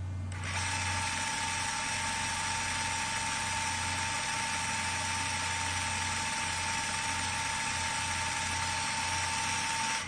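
Camcorder tape rewinding: a steady mechanical whirr with a constant whine and a low hum, starting about half a second in and cutting off abruptly near the end.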